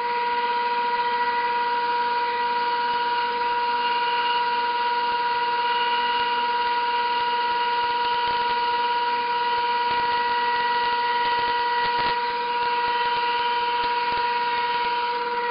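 Band saw running and cutting through a stack of boards: a steady whine with several fixed pitches and a few faint ticks.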